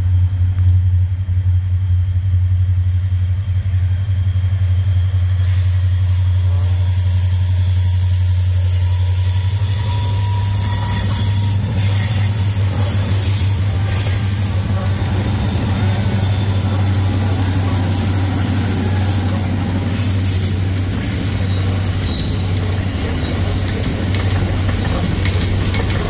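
A freight train led by a five-unit EMD diesel consist rolls past with a steady, heavy engine drone. From about five seconds in, high-pitched wheel flange squeal rises over it on the curve. The locomotives and then the freight cars pass with a continuous clatter of wheel clicks.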